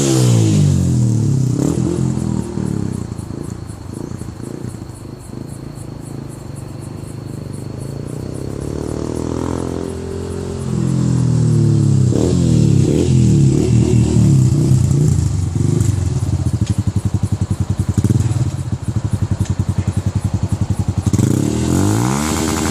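Yamaha Fazer 150's single-cylinder four-stroke engine through an aftermarket Roncar 'Boca 8' aluminium exhaust, the motorcycle riding by at low revs: the engine note falls in pitch and fades near the start, stays quieter for several seconds, then rises and comes back loud from about ten seconds in, with a fast pulsing exhaust note before falling away again near the end.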